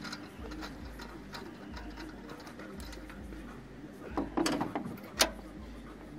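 Hand tools clicking lightly against metal, then a burst of louder metallic clatter and one sharp click about five seconds in, as a long spark plug socket extension is fitted down into a spark plug well on the cylinder head.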